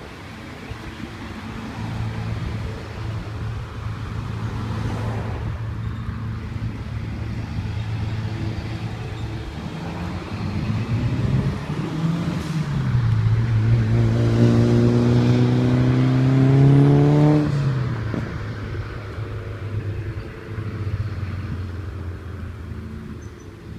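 A motor vehicle engine running steadily, then climbing in pitch for a few seconds about two-thirds of the way through before dropping back down.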